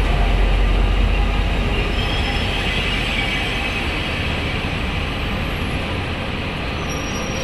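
A train running through the station at low speed, with a steady heavy rumble of wheels on rails and faint high squeal tones from the wheels.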